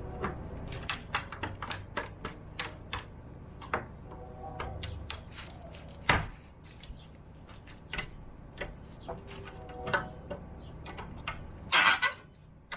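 Hand-tool work on a house's wood framing: an irregular run of knocks and taps on wood, with a louder single impact about six seconds in and a dense clatter near the end.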